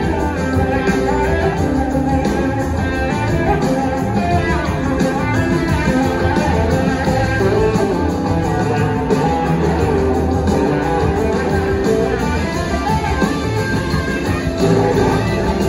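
Live blues-rock band playing an instrumental passage, with electric guitars to the fore over bass and drums, heard from the audience in a concert hall.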